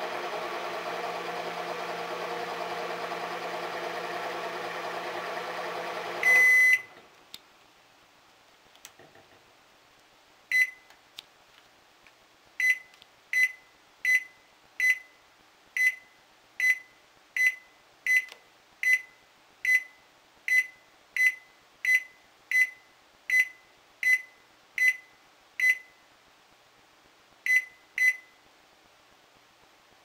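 Panasonic NE-E22A2 microwave oven running with a steady hum, which stops about six seconds in with one louder, longer beep. After a pause come about twenty short identical keypad beeps, roughly one every three-quarters of a second, and two more near the end, as buttons are pressed to set the defrost weight.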